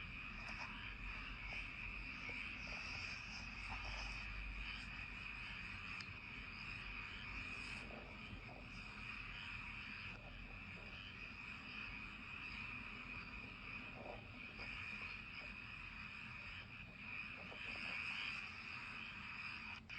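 Countryside night chorus of frogs and insects: a steady high-pitched trilling that never breaks, with a few faint single calls scattered through it.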